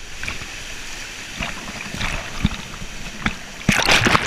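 Steady rushing river water, with scattered knocks and a loud burst of noise near the end.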